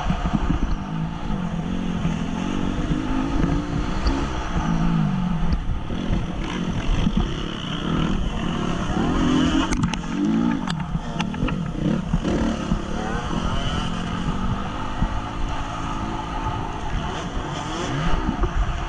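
2014 Honda CRF 250 four-stroke single-cylinder motocross bike racing, heard from a helmet-mounted camera, its engine pitch repeatedly rising and falling as it revs up and backs off. A few sharp clicks come about ten seconds in.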